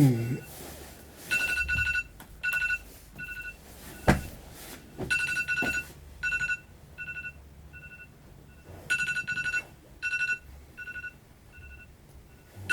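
Mobile phone alarm beeping, short two-tone beeps repeating in bursts and groups. A brief falling groan-like sound comes right at the start, and a single knock about four seconds in.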